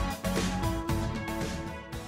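Background music with a steady beat, fading out toward the end.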